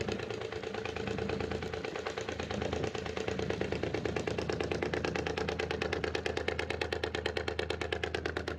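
Yanmar three-cylinder marine diesel engine running steadily with a fast, even firing beat.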